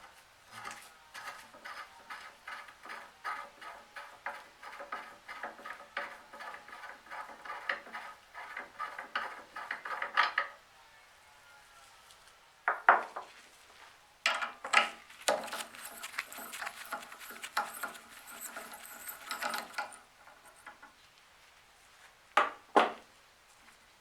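Hand work on small metal parts of an old blowtorch. About ten seconds of quick, even scraping strokes, about three or four a second, are followed by a few metal knocks and clinks, a rougher, hissier run of scraping, and two close knocks near the end.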